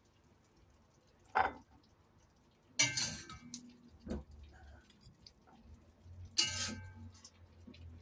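Three sharp clinks of crockery and kitchenware: a short knock about a second and a half in, then two louder clinks about three seconds and six seconds in, each ringing briefly.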